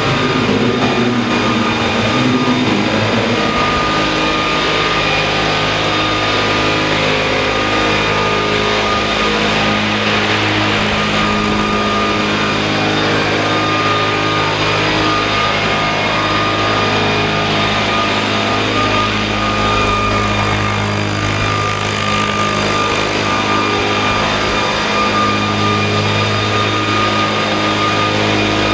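Large scale RC model Boeing-Vertol CH-47 Chinook helicopter in flight: its two tandem rotors and drive make a steady drone, with a low hum and a thin, high, steady whine above it.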